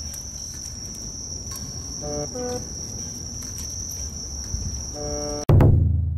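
A steady high insect trill runs on without a break. About five and a half seconds in, a sudden loud, deep hit cuts in and rings and fades. It is an editing sound effect for the title card.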